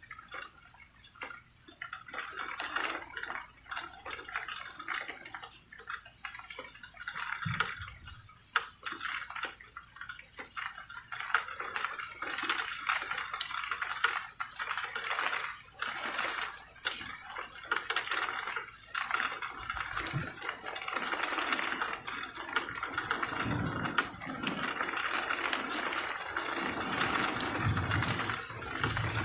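Rain falling with irregular dripping taps of drops, the hiss growing fuller and steadier in the second half, with a few brief low thumps.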